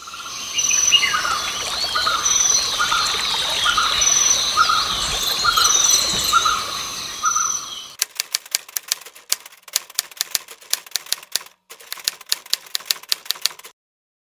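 Forest ambience with birds calling over a regular repeated chirp, then about six seconds of rapid typewriter key clicks, typing out on-screen text, with one brief pause.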